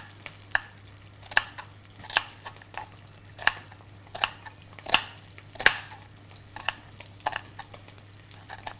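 Kitchen knife slicing a red onion on a wooden chopping board: the blade knocks on the board a dozen or so times at an uneven pace.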